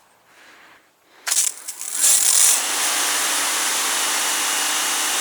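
Karcher K2 battery cordless pressure washer starting up about a second in: a sharp burst as the spray opens, then a steady hiss of the water jet with the pump motor's hum running under it.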